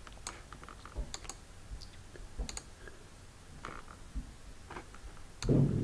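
Scattered light clicks of a computer mouse being clicked and scrolled through software menus, a dozen or so spread unevenly. A brief louder low sound comes near the end.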